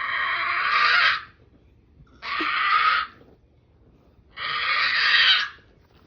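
Three harsh, raspy bird-like screeches, each about a second long, with short quiet gaps between them.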